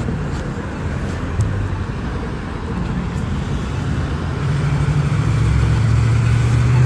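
City street traffic with cars going by. A vehicle's engine comes in as a steady low hum about two-thirds of the way through and grows louder toward the end.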